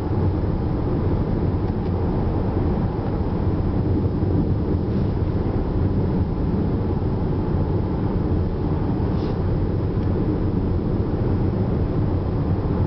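Steady engine and road noise of a Chevrolet car heard from inside the cabin while driving, a constant low hum under a rushing noise.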